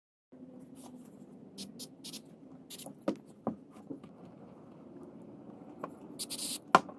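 Hands handling and folding fabric over a PVC pipe frame: scattered rustles and light knocks over a steady low hum. About six seconds in comes a brief hiss from an aerosol spray can, followed at once by a sharp click.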